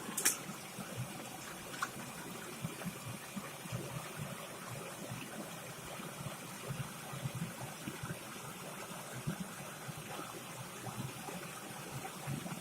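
Flowing stream water, a steady low babbling. One sharp click comes just after the start and a fainter tick near two seconds in.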